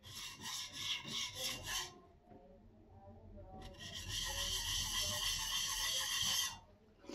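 Steel plane iron rubbed freehand on a 300-grit diamond sharpening plate. It makes about four quick rasping strokes, then a pause, then one long continuous scrape of about three seconds. The bevel is being ground to raise a burr across the cutting edge.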